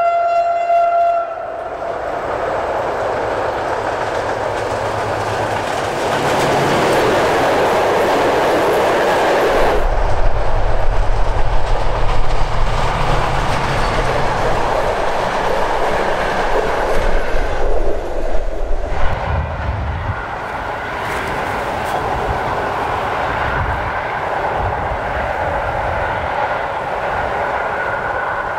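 SM42 diesel locomotive's horn sounding, the blast ending about a second in. The diesel engine then runs loud as the locomotive passes close by, followed by the clickety-clack of the passenger coaches' wheels over the rail joints, and the rolling noise fades as the train moves away.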